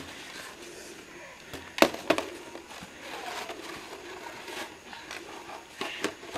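Two sharp knocks a fraction of a second apart about two seconds in, over faint rustling and shuffling.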